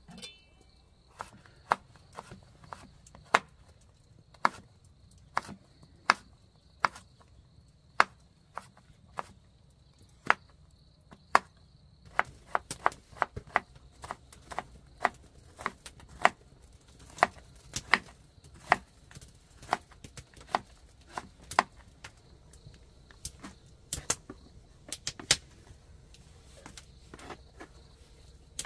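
Knife chopping on a cutting board: sharp separate strokes about one a second, turning into quicker runs of chops about halfway through.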